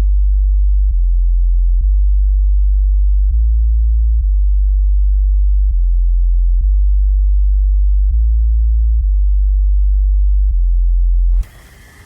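Bass test tones: loud, very deep sine-wave hums that step between a few low pitches about once a second in a repeating pattern, used to check a speaker's or headphones' low-frequency reach. The tones cut off suddenly near the end, and a quieter hiss-like sound follows.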